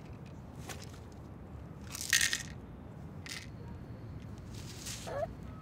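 Three short rustling, crunching sounds, the first and loudest about two seconds in, as hands rummage through the contents of a handbag.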